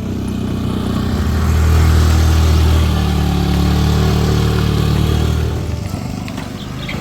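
A motorcycle engine running, growing louder over the first couple of seconds, holding, and dying away near the end.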